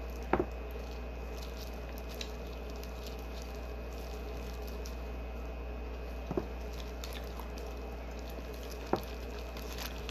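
Wet, squishy handling of a boiled shrimp as it is peeled with plastic-gloved fingers and eaten, with a few soft clicks and smacks over a steady low hum.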